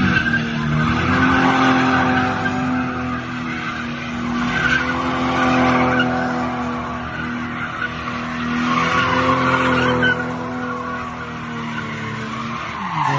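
Car engine held at steady high revs while its tyres spin and screech; the screech swells and fades several times.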